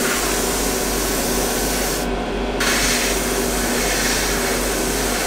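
Airbrush spraying paint with a steady hiss, cutting out for about half a second roughly two seconds in, over the constant hum of a spray-booth extractor fan.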